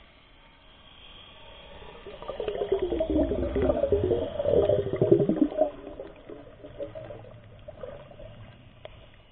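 Underwater bubbling and gurgling heard through a submerged camera: a loud stretch of rushing bubbles about two seconds in that dies down after about three and a half seconds, leaving faint bubbling.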